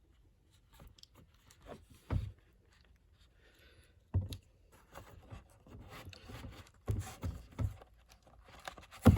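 Handling noises from a vinyl record package being opened: scraping and rustling of the sleeve and wrapping, with a few soft knocks, the strongest near the end.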